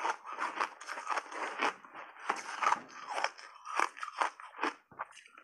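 Ice chunks crunching between teeth, close to a clip-on microphone: a dense, irregular run of crunches that thins out near the end.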